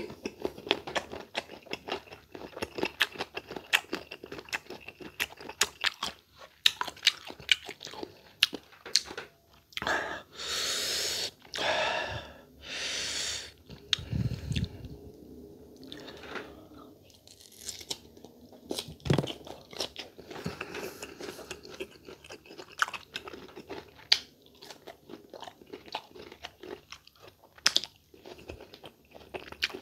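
Close-up crunching and chewing of raw green mango slices, with many sharp crisp bites and wet mouth sounds. Two longer hissing sounds come near the middle.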